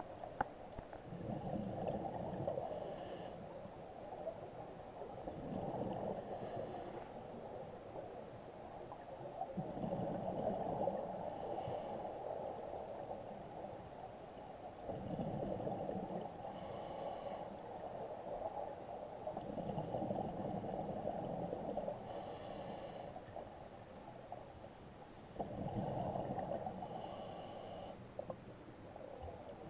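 Scuba diver breathing through a regulator underwater, with a burst of gurgling exhaled bubbles about every four to five seconds and a short hiss of the regulator with each breath.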